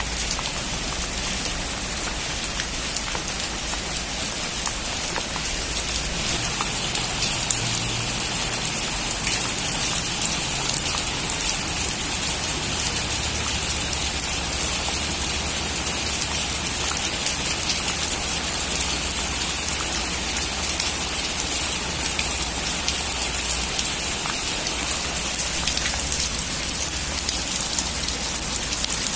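Heavy rain drumming steadily on a metal roof, a dense hiss of countless drop ticks that grows a little louder about six seconds in.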